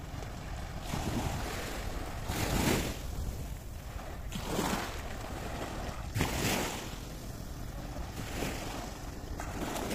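Small waves washing up on a sandy beach in three soft surges a couple of seconds apart, over a steady rumble of wind on the microphone.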